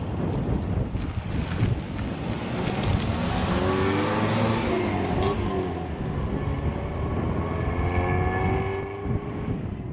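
Toyota Carina TA12's four-cylinder OHV engine heard from outside as the car drives, accelerating: the engine note climbs from about three seconds in, then climbs again near the end, as after a gear change. Wind noise on the microphone.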